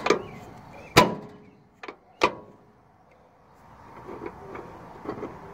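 Sharp knocks and clunks from handling, four in the first two and a half seconds with the one about a second in the loudest, then faint rustling.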